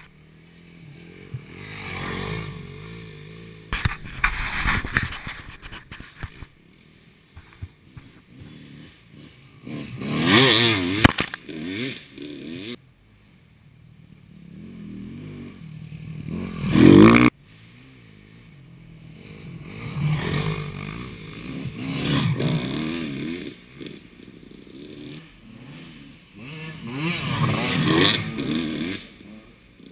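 Enduro dirt bikes passing one after another on a dirt track, about seven passes, each engine revving up and down as it goes by. The loudest passes come about ten and seventeen seconds in, and one cuts off suddenly.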